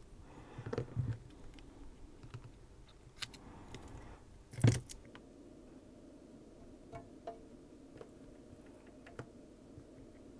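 Light clicks and taps of tweezers and small metal parts being handled on an opened iPod Touch, with one louder knock about halfway through.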